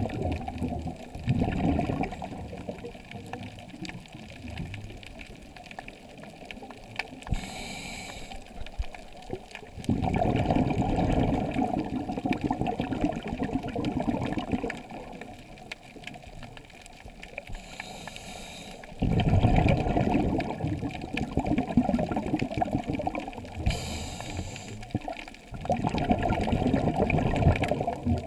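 Scuba breathing heard underwater through a camera housing. Exhaled bubbles from the regulator come in long rushing bursts of several seconds, with a short, higher hiss of inhalation before most of them.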